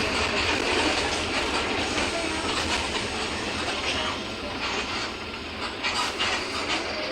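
Mercedes-Benz OF-1721 Bluetec 5 diesel city bus on the move: steady engine and rolling road noise with body rattles and clicks. It eases off a little about halfway through.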